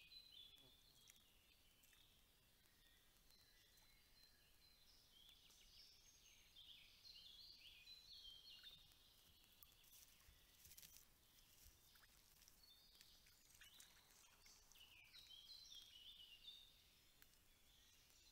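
Faint forest birdsong: a songbird repeating short runs of high, falling notes in a few spells with pauses between, over a quiet background.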